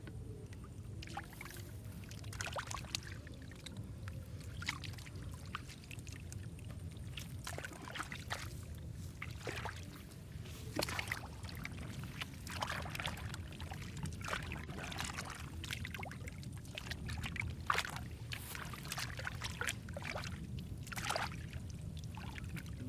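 Hands sloshing and squelching through wet mud and shallow water in many irregular splashes, over a steady low rumble.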